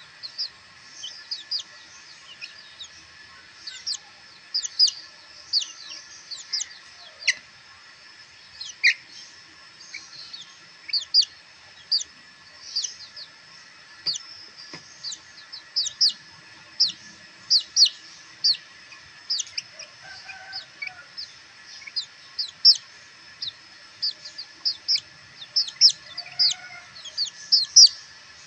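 Young black bantam chicks peeping: a quick, uneven run of short, high peeps that slide downward in pitch, often several a second, with a couple of lower, softer calls in the second half.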